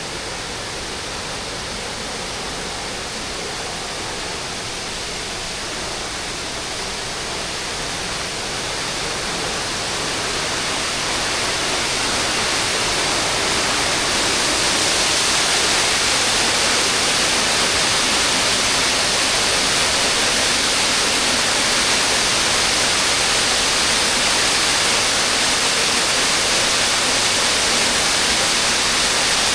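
Rushing water of Erikli Waterfall, an even hiss that grows louder over the first half and then holds steady.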